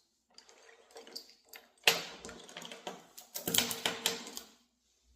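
Handling noise from working on a model-dog mannequin: rustling with light clicks, a sharp knock about two seconds in, then a quick run of clicks and rattles.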